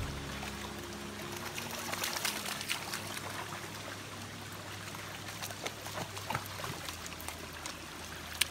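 Shallow rocky stream trickling and splashing over stones, with scattered light splashes and knocks from footsteps wading through the water.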